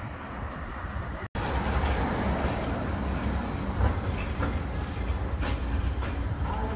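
Bombardier Flexity 2 tram running along street track, a steady rail rumble. The sound drops out for an instant about a second in, then comes back louder as the tram passes close.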